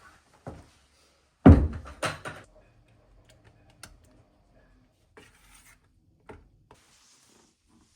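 A few knocks and a short clatter of hard objects being handled, loudest in a quick run of impacts about a second and a half in, followed by lighter knocks and rustling.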